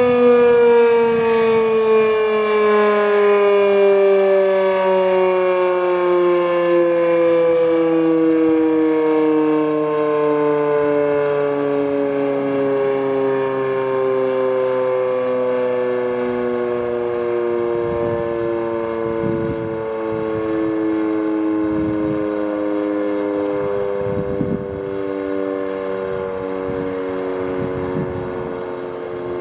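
H.O.R. Siro-Drone rotating warning siren winding down, its tone gliding slowly and steadily lower, with a second, lower tone sounding beneath it.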